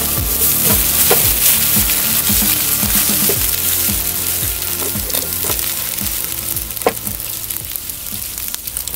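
Burnt-out match heads hissing and crackling as they smoulder, the hiss slowly dying away, over background music with a steady beat.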